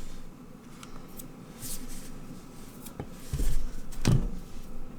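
Mechanical keyboard being handled on a desk: a sharp click about three seconds in, then two dull thumps about half a second apart.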